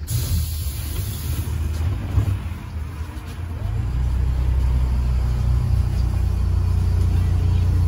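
Low rumble and hum of a trolleybus heard from inside the passenger cabin, with a brief hiss at the start. The rumble grows louder about halfway through and then stays steady.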